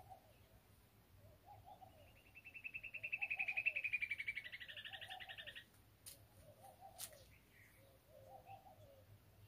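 Birdsong: a low call repeats about once a second, and a loud, rapid trill that drops a little in pitch runs from about two seconds in to five and a half seconds. Two short clicks follow near the end.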